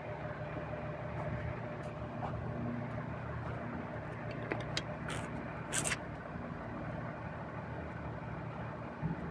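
A steady low motor hum, like an engine running at idle, with a few short clinks about five and six seconds in.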